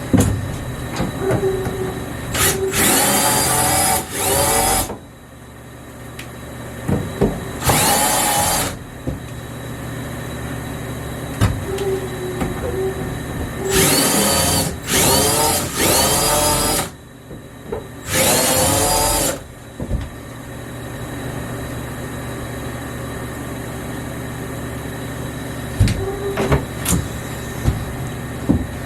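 Power drill drilling out rivets in a boat's aluminum bench frame, in about six short bursts of one to two seconds, the pitch climbing as each burst spins up.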